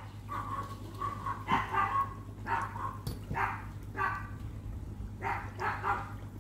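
A dog barking repeatedly, about eight short barks spaced half a second to a second apart.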